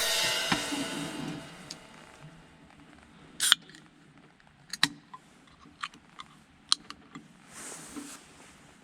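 A crash in the background music rings out and fades over the first two seconds. After that come scattered sharp snaps and crackles, about eight of them, with a soft hiss near the end.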